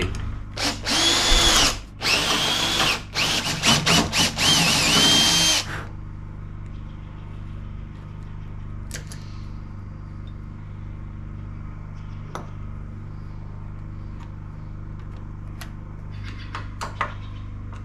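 Cordless drill boring into the edge of a cedar door in several short trigger runs, its motor whine rising and falling, to open out the latch hole instead of chiselling it. The drilling stops about six seconds in, leaving a steady low hum and a few faint clicks.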